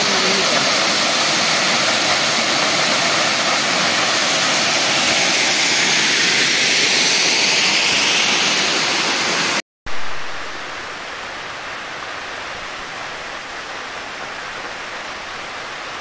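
Waterfall water rushing, a loud, steady roar; a sharp cut about nine and a half seconds in, after which it goes on noticeably quieter.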